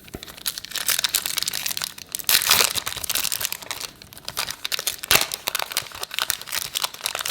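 Plastic wrapper of a basketball trading card pack being torn open and crumpled by hand, a dense crackling with sharp crinkles, loudest about two and a half seconds in and again about five seconds in.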